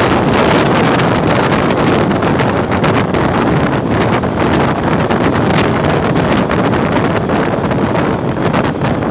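Loud, gusting wind buffeting the microphone of a motorcycle riding at road speed, with the rush of the ride underneath.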